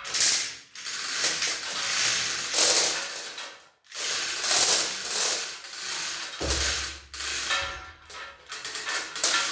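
Hand-operated chain hoist being worked under the load of a heavy cast-iron engine crankcase, its ratchet clicking and chain rattling in spells, with a brief pause about four seconds in.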